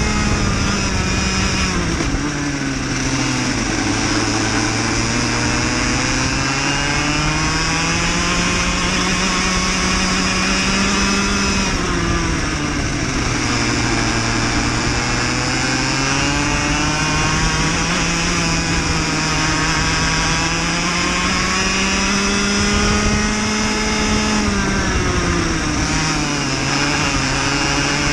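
Onboard sound of a cadet racing kart's small single-cylinder engine at race pace. Its pitch climbs steadily as the kart picks up speed and drops away sharply three times as it slows.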